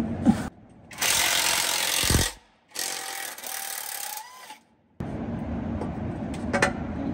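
Pneumatic hand tool running in two short bursts that start and stop abruptly: first a loud hissing rush, then a quieter one with a steady whine that rises slightly at its end. Then steady workshop background with one sharp metallic click.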